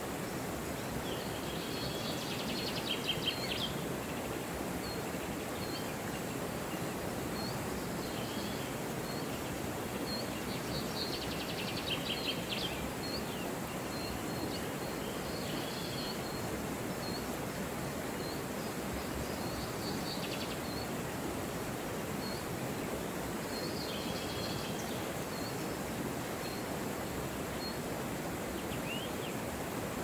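Shallow river rushing over stones, a steady even noise. Over it, birds sing: a short high chirp repeated about once a second, and brief trilled phrases every several seconds.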